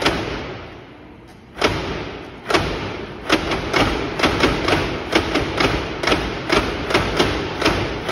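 Wooden shishimai (lion-dance) clock performing: its carved wooden lion heads and works clack sharply in an uneven run of two or three clacks a second, with a pause of about a second near the start.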